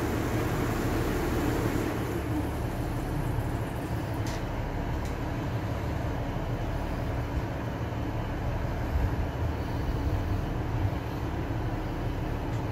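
Diesel train's engine idling under the floor, a steady low hum heard inside the passenger carriage while the train stands still, with a couple of faint ticks about four and five seconds in.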